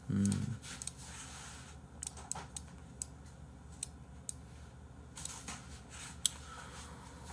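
Faint scattered small clicks and handling noises, about a dozen spread unevenly, after a short vocal sound right at the start.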